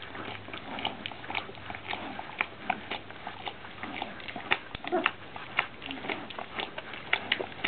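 Golden retriever puppies suckling at their mother: a steady run of small, irregular sucking and smacking clicks, several a second, with a brief squeak near the middle.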